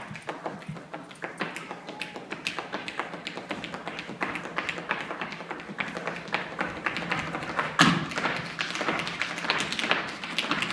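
Hard-shoe Irish step dancing: a fast, dense run of footwork taps and clicks, with a louder stamp about eight seconds in.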